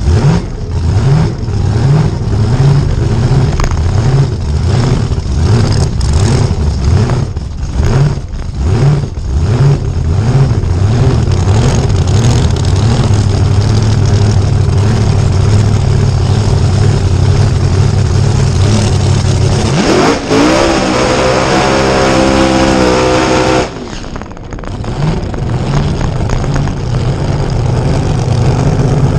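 Drag car's engine heard onboard, idling loud and lumpy with choppy throttle blips as the car rolls. About twenty seconds in the revs climb and hold high and steady for roughly three seconds, then cut back sharply before the engine settles to idle again.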